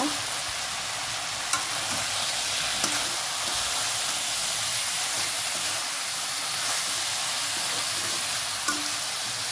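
Banana flower, potatoes and boiled chicken sizzling in a hot wok as a spatula stirs them, a steady frying hiss with two sharp clicks of the spatula against the pan in the first few seconds.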